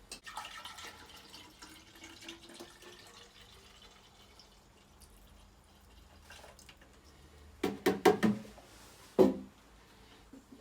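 Liquid heating-system cleaner being poured into a MagnaCleanse flushing unit, a trickle with a gliding pitch at first. Then a few loud clunks, about eight and nine seconds in.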